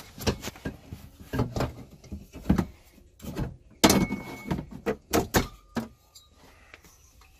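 Irregular knocks, clicks and rattles as a black recessed toilet paper holder is worked loose and pulled out of its cabinet opening, the loudest knock about four seconds in; the knocking stops about six seconds in.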